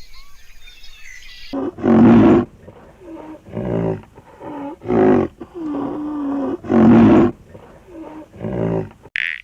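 Big cat calling: a series of about eight loud, rough, rasping roars and grunts in quick succession, one of them longer and drawn out, starting abruptly after faint birdsong and insect chirps in the first second and a half.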